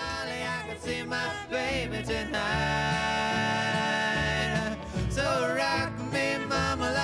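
Bluegrass-style country song: singing over plucked guitar and banjo, with one long held note in the middle.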